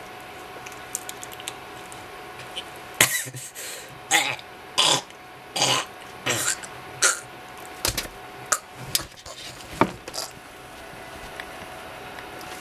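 A man with a mouthful of banana lets out a string of short, breathy, cough-like bursts, about two-thirds of a second apart, followed by a few sharp clicks.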